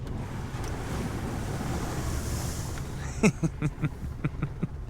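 Truck tyres ploughing through a deep puddle, throwing up a rushing splash of water spray that swells about two seconds in and fades out by three seconds. A man then chuckles in a few short bursts.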